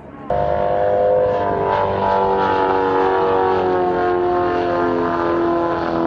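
Aerobatic biplane's piston engine and propeller running in flight, a loud drone that sets in suddenly just after the start and slowly falls in pitch.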